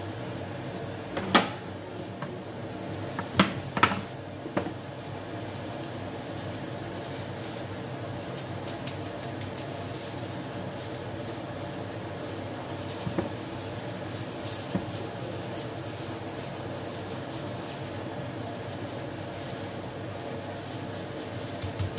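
Steady fan-like hum, with four sharp clinks in the first five seconds from a stainless steel bowl as pork is mixed in it by hand. Two fainter clinks follow later.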